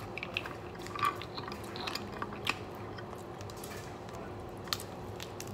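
Scattered soft clicks and cracks from cooked crab legs being handled and broken apart in their shells by hand. The clicks are spread out, a few at a time, with a slightly sharper one midway and another near the end.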